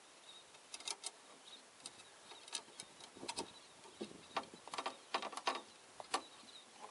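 Spearfishing gear being handled, including a three-piece pole spear: a scatter of light clicks and clinks, busier in the second half.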